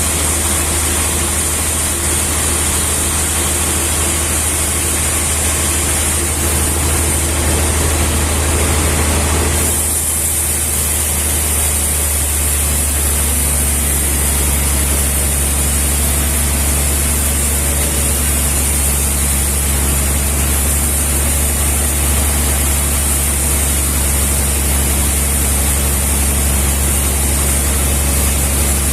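A heavy engine running steadily with a deep, even hum, its sound shifting slightly about ten seconds in.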